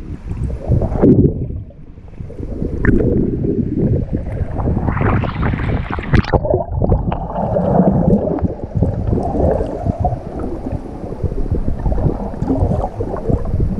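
Water rushing and gurgling over an action camera's microphone as snorkellers swim in the sea, with louder splashing from about four and a half seconds in, stopping abruptly around six and a half seconds, as the camera breaks the surface, then choppy surface water.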